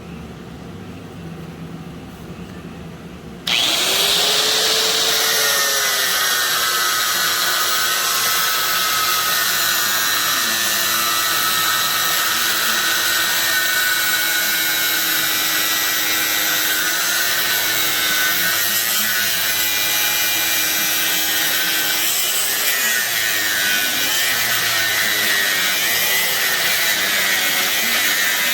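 An electric power tool switches on about three and a half seconds in and runs continuously while worked against material, its motor pitch sagging and wavering under the changing load.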